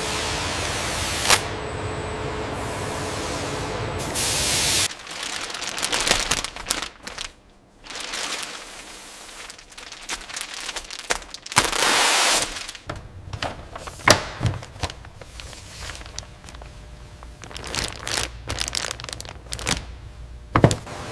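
Steady hiss with a faint hum for about five seconds, cutting off abruptly. Then plastic wrapping film crinkling and rustling as it is handled, with scattered clicks and knocks and a louder rush of noise near the middle.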